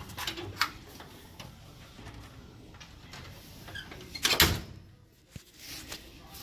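Scattered clicks and knocks, with one loud thud a little past four seconds in.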